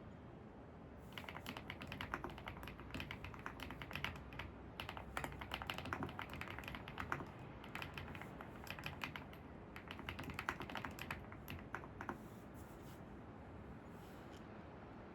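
Typing on a computer keyboard: quick, irregular runs of key clicks for about ten seconds, with a short pause partway through and a few stray keystrokes near the end, over a faint steady hiss.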